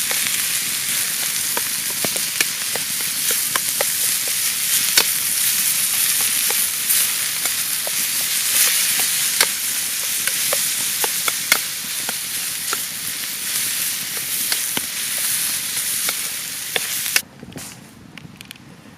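Food frying in a pan over a campfire: a steady, loud sizzle with frequent sharp pops of spitting fat. It cuts off suddenly near the end, leaving a much quieter sound with a few crackles.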